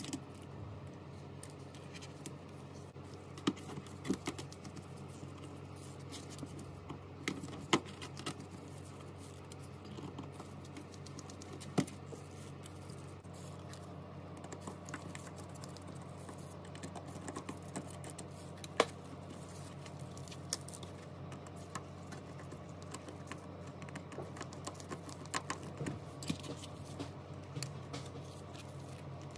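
Small clicks and taps from handling tools and phone parts during smartphone repair work, at irregular intervals, over a steady low hum.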